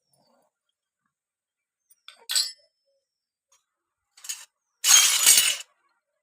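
Miniature toy kitchen pieces being handled and set down: a short clink about two seconds in, a fainter one after four seconds, then a louder clattering rattle near the end, with dead silence between.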